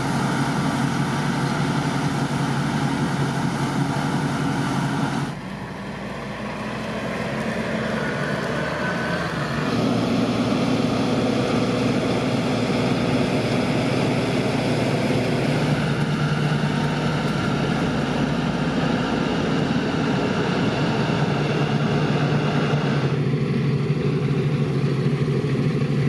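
Diesel engines of harvest machinery running steadily. The engine note changes abruptly several times, about 5, 10, 16 and 23 seconds in, as the sound shifts from one machine to another.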